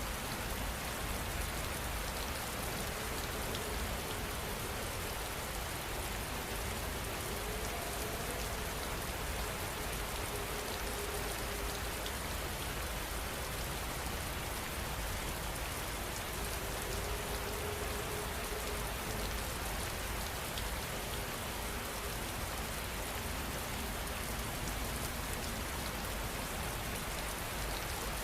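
Steady rain falling, an even, unbroken hiss of dense drops.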